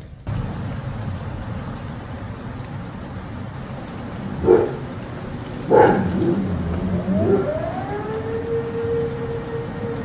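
Steady rain hiss, with a dog barking twice, about four and a half and six seconds in, the loudest sounds here. From about seven seconds in, an outdoor tornado warning siren winds up, rising in pitch and settling into a steady tone.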